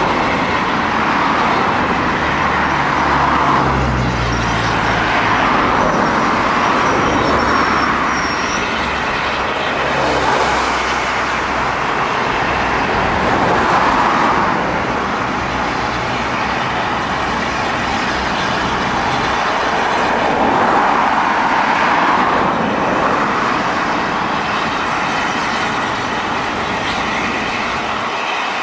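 Road traffic: cars and a van passing one after another on a two-lane road, each pass swelling and fading over a few seconds.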